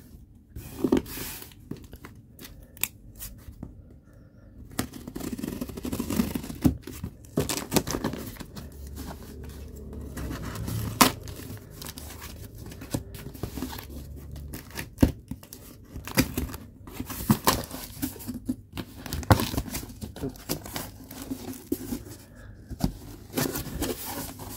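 Scissors cutting and snipping through packing tape on a cardboard shipping box, with tape tearing and cardboard flaps being handled and pulled open. Irregular sharp snips and clicks mixed with rustling.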